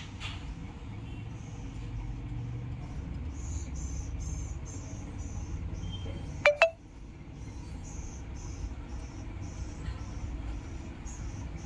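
Steady low background rumble, with two sharp, short clicks in quick succession a little past halfway.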